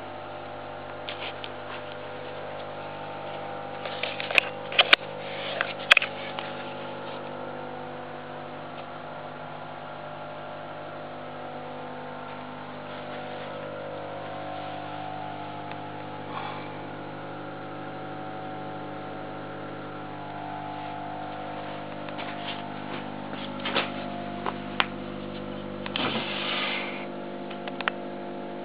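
Steady electrical hum made of several unchanging tones, with a few sharp clicks and knocks about four to six seconds in and again in the last few seconds.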